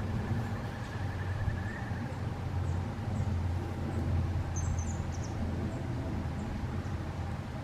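Steady low outdoor rumble, with a brief cluster of short, high-pitched bird chirps about four and a half seconds in.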